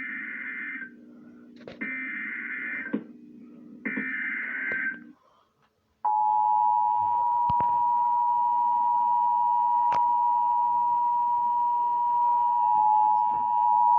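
Emergency weather-warning broadcast alert: three short digital data bursts of the SAME header, each about a second long, then after a second's pause the steady 1050 Hz warning alarm tone held for about eight seconds. The tone signals that a warning, here a severe thunderstorm warning, is about to be read.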